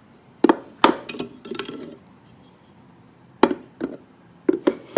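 Hard parts of a shooting-board plane and its board being handled and set down on a table: sharp knocks and clunks, two near the start, two more past the middle and a quick cluster of three near the end.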